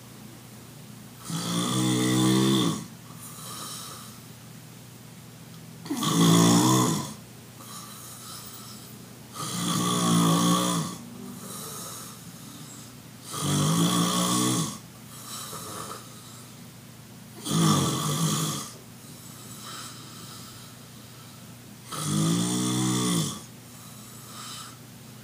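A man snoring loudly in his sleep: six long, rasping snores about four seconds apart, with a fainter breath between each.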